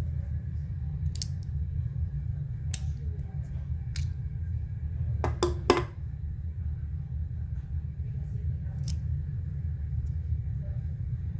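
Sharp small metallic clicks from a 1/2.5-scale alloy Colt 1911 miniature model being handled, coming singly every second or two, with a quick run of three louder clicks about five and a half seconds in. A steady low rumble runs underneath.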